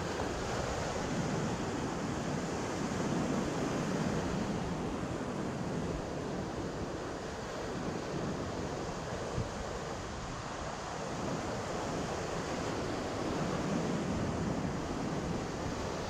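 Ocean surf washing against a rock platform, a steady rush of waves that swells and eases slowly, with some wind on the microphone.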